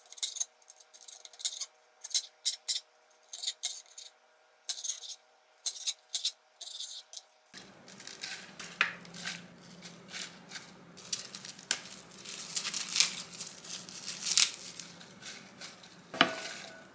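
Chef's knife slicing a bell pepper on a cutting board: a run of crisp, uneven chops. About halfway through, this gives way to the rustle of lettuce leaves being handled and dropped into a glass bowl.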